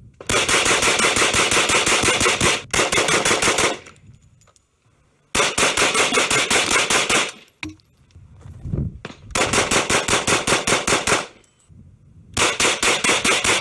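KRISS Vector pistol-caliber carbine firing long rapid strings of shots, several a second. There are four strings in all, separated by short pauses of a second or two.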